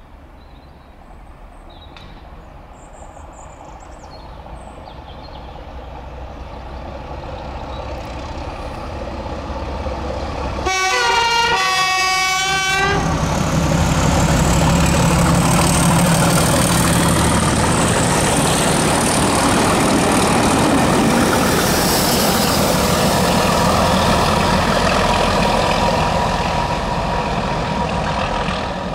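Class 31 diesel locomotive with its English Electric V12 engine approaching at speed, growing steadily louder, and sounding its horn for about two seconds nearly eleven seconds in. It then passes close by with its engine running loudly and the wheels rumbling on the rail, fading a little near the end as the train goes away.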